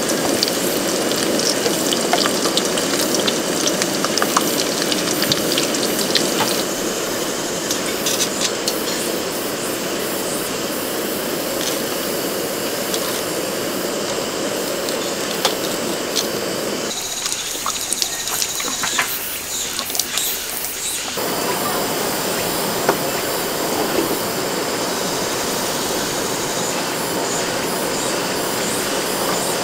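Heavy rain pouring steadily onto a camping tarp: a dense, even hiss with scattered small ticks of drops. The lower, fuller part of the rain sound drops away for a few seconds about two-thirds of the way through, then returns.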